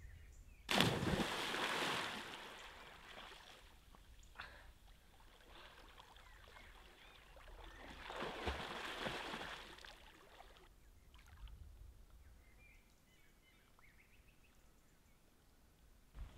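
A person jumping into a still lake: a sudden splash about a second in that dies away over a second or so, then a softer stretch of splashing water a few seconds later.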